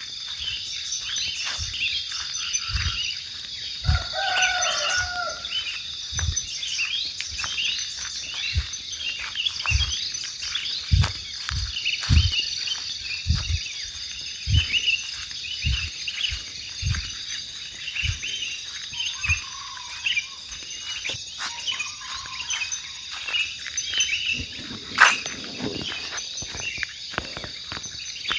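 Forest chorus of insects and frogs: a steady high insect drone under many short chirps and quick rising calls. Scattered low thumps and a short animal call run through it, and a single sharp click about 25 seconds in is the loudest moment.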